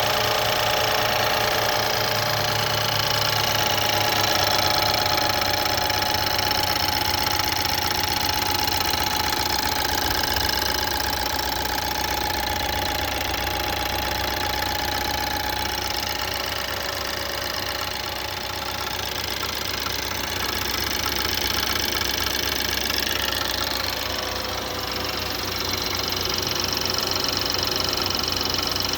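BMW N20B20 2.0-litre turbocharged four-cylinder engine running steadily with a knocking noise whose cause the owner does not know.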